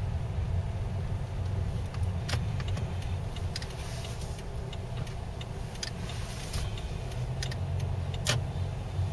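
Low, steady rumble of a car driving slowly over a snowy, slushy street, heard from inside the cabin, with scattered sharp crackles and clicks.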